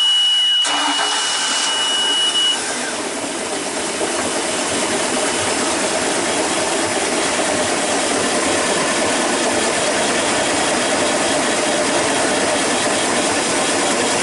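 Bayliner 265 Sunbridge's inboard engine running steadily just after a cold start, with a steady high warning tone sounding over the first couple of seconds and then stopping.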